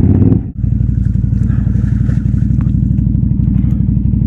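Can-Am Outlander 570 ATV's V-twin engine running hard under load, churning through deep mud, with a brief break about half a second in.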